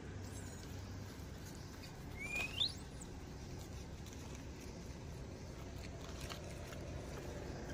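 A single short, high-pitched animal squeak rising in pitch, about two seconds in, over a quiet background with a few faint rustles in the dry leaf litter.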